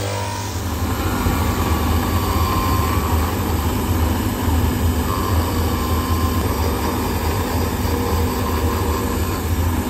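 Shoe-repair finishing machine's motor running steadily, its spindle cutter grinding a stitch groove into the edge of a new leather sole. The cutting noise rises about a second in as the sole is pressed to the cutter.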